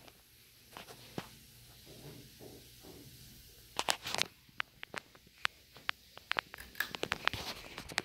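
Harbor Breeze Woodbridge 52-inch ceiling fan running with a low steady hum and a light hiss. From about halfway in, a scatter of sharp irregular clicks and knocks sits over it.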